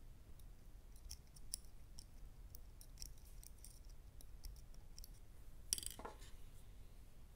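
Faint small clicks of a screwdriver and small screws working on a plastic RC gearbox housing during reassembly, with one brief louder scrape falling in pitch about six seconds in.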